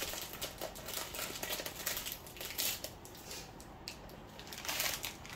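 Plastic snack bag crinkling and crackling in the hands as it is worked open, in quick irregular clicks that grow busier near the end.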